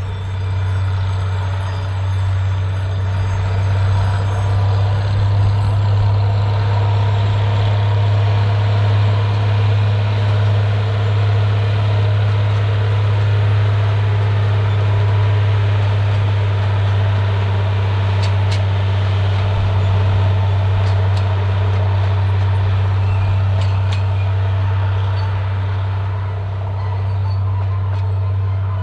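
Narrow-gauge diesel locomotive (Gartell Light Railway Bo-Bo No. 1) running past, its engine giving a loud, steady low drone as it hauls its coaches. The drone eases slightly near the end.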